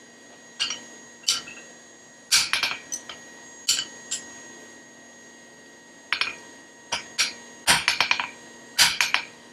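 Irregular metal-on-metal clinks and knocks from steel blacksmith tongs being handled and tried on hot stock, each with a short ring. The clinks come in small clusters, thickest in the last couple of seconds.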